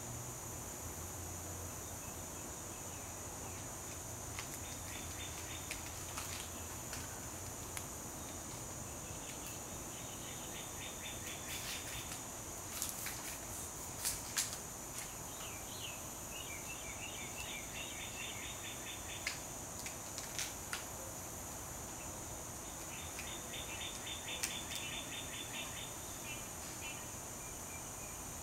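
Outdoor backyard ambience: a steady high-pitched insect hum, with several bursts of fast chirping trills a few seconds long. A few sharp clicks stand out, the loudest a pair about 14 seconds in.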